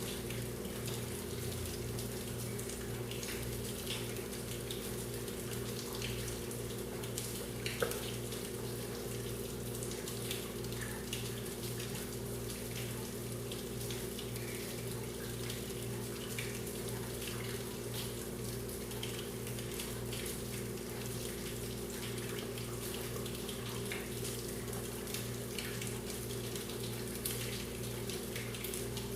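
Rain falling on leaves: many scattered drop ticks over a constant low hum, with one sharper drop hit about eight seconds in.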